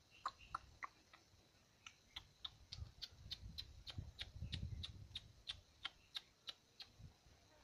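A quick series of faint, evenly spaced clicks, about three a second, over a soft low rumble in the middle.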